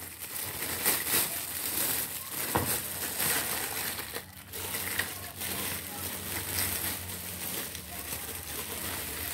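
Thin clear plastic wrapping crinkling and crackling irregularly as it is pulled and torn open around a plastic stacking rack.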